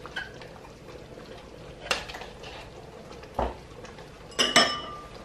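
Kitchen clatter: a couple of light knocks, then, near the end, two ringing metal clanks against a stainless steel cooking pot as chopped leeks are tipped into the stew.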